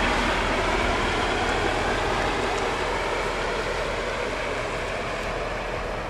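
Neoplan coach's diesel engine pulling away and driving off, a steady engine and road noise that fades gradually as the coach moves away.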